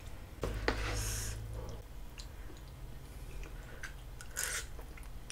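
Close-miked eating sounds: glass noodles and chewy rice cakes handled with chopsticks and eaten, with light clicks, a short slurp about a second in and another about four and a half seconds in, and chewing.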